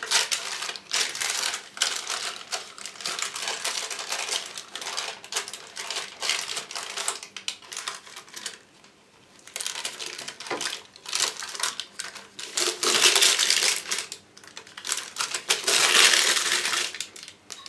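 Baking paper rustling and crinkling in irregular bursts as hands press pastry dough into a parchment-lined multicooker bowl and straighten the paper strips. There is a short lull about nine seconds in, and the loudest crinkling comes near the end.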